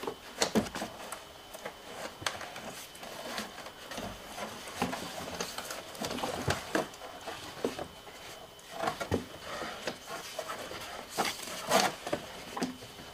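Old rubber cargo hatch seal being pulled off the edge of a C5 Corvette's rear hatch opening: irregular rubbing and scraping with scattered small clicks and knocks.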